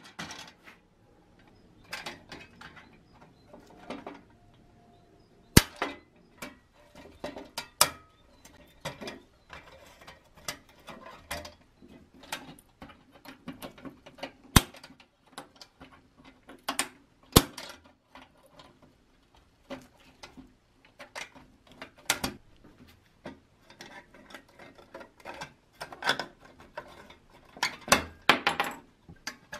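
Small metal handling sounds from a rusty pressed-steel toy dump truck being taken apart: irregular clicks, clinks and scrapes as pliers work the rusted wheels and axles, with a few sharp metallic knocks.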